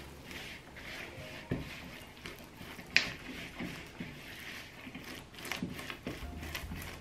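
Spatula stirring and scraping a soft egg-yolk and cheese mixture around a glass bowl, with a sharp tap against the bowl about three seconds in.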